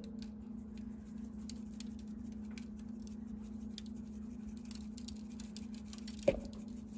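Dried oregano being sprinkled over a raw chicken in a foil roasting pan: light, scattered pattering of the flakes, with one sharper knock about six seconds in, over a steady low hum.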